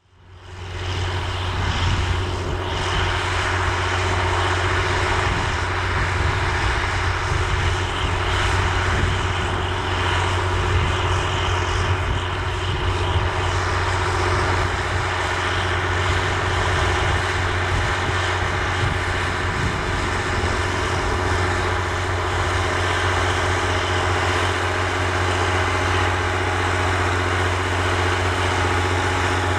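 John Deere 7020 tractor's six-cylinder diesel engine running steadily under load while pulling a disk harrow, with a deep steady engine hum. It fades in over the first second or so, then holds level.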